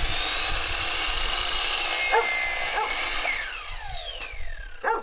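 Ridgid compound miter saw running at full speed with a high whine, cutting through a wooden decking board with a harsher rasp for about a second and a half, then released and winding down in a falling whine.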